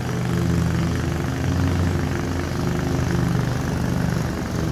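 Lawn mower engine running steadily at a constant speed, a continuous motor drone with a slight waver in pitch.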